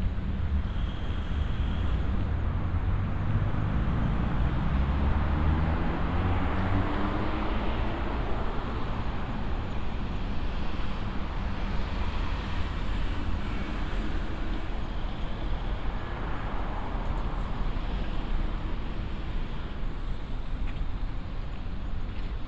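Road traffic: a vehicle's engine pulls away with a rising pitch over the first several seconds over a steady rumble, and cars then pass twice with swells of tyre noise.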